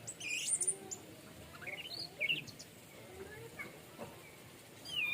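Orange-headed thrush singing in short phrases of quick, high, sweeping whistled notes: one phrase at the start, another about two seconds in, then a pause before a further note near the end.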